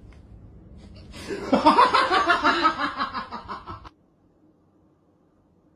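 A person laughing for a few seconds, in a quick pulsing run that starts about a second in and cuts off abruptly before the end, leaving near silence.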